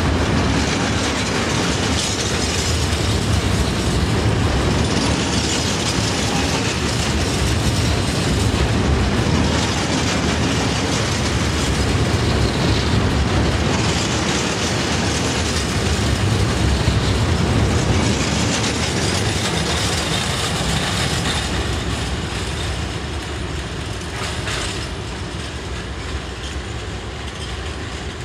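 Empty KSAA log wagons of a freight train rolling past, their wheels clattering over the rails with recurring bursts of higher-pitched rattle. The noise fades over the last several seconds as the train draws away.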